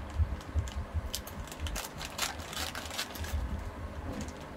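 Packaging crackling and rustling as it is handled and an item is taken out, with irregular clicks and low bumps.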